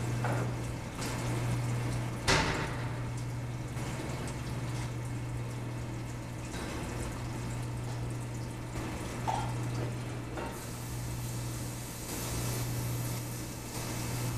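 Reef aquarium's circulating water, a continuous trickling wash over a steady low hum. A short sharp sound stands out about two seconds in, and a smaller one near nine seconds.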